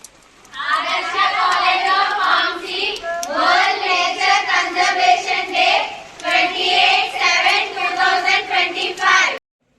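Voices singing, with no clear instruments, which cut off suddenly near the end.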